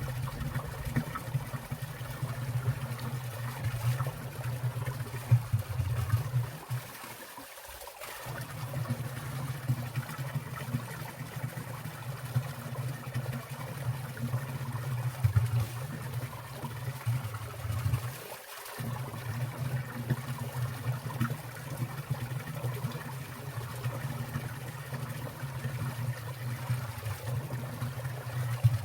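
Water from a winter valley stream trickling and falling among icicles, a steady running-water sound with a low rumble under it. The rumble breaks off briefly twice, about seven and eighteen seconds in.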